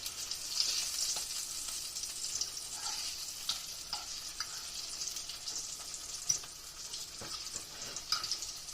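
Flour-and-cornmeal-breaded green tomato slices frying, a steady crackling sizzle with a few sharp clicks scattered through.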